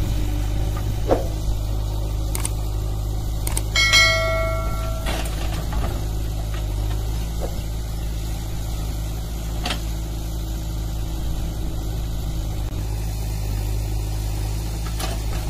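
Steady diesel engine drone from a backhoe loader and tractor at work, with a few short knocks and a brief metallic ring about four seconds in.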